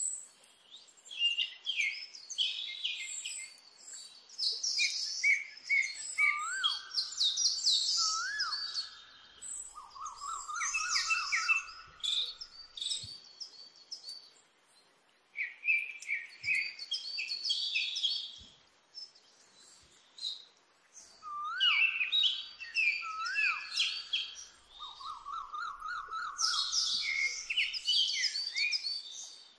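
Several birds chirping and singing: quick high chirps, with rising whistled notes and a trill. The same passage comes round again about fifteen seconds later, like a looped background track.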